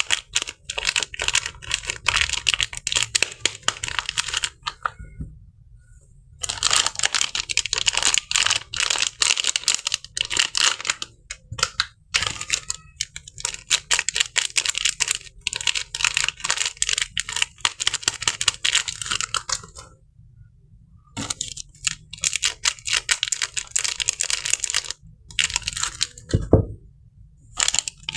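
Crisp paper wrapping of a bar of soap crinkling and tearing as it is handled and opened. The sound comes in long crackly stretches with a couple of brief pauses.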